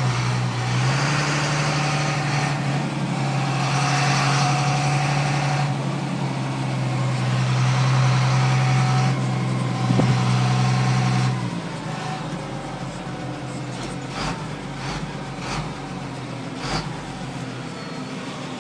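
Car engine and road noise: a steady low hum under a wash of noise, which drops away about eleven seconds in, leaving a quieter rumble with a few light clicks.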